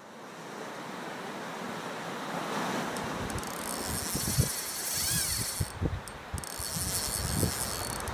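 Outdoor wind and sea noise: a steady rushing that fades in, with wind buffeting the microphone in low thumps from about three seconds in.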